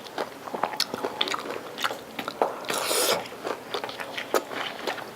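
Close-up mouth noises of a person eating a taco: repeated biting and chewing with many small wet clicks and crackles, and a louder, denser crunchy burst about three seconds in.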